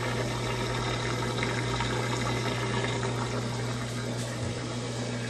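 Electrolux LT15F washing machine running with water moving inside it and a steady electric hum from its pump or motor.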